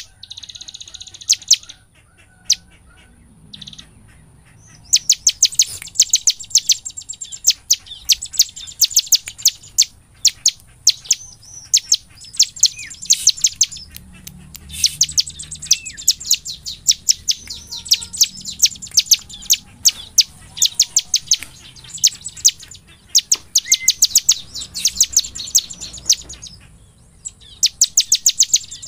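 Bar-winged prinia (ciblek) singing its full, rapid song: long runs of sharp, high chips fired off several a second, with short breaks between runs. It starts with a few scattered notes and breaks into steady song about five seconds in.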